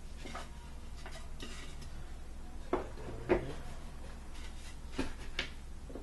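Wooden drawer panels of a flat-pack dresser knocking and clacking as they are handled and fitted together: four short sharp knocks, two near the middle and two near the end, the second the loudest, with softer rubbing and handling noise in the first seconds.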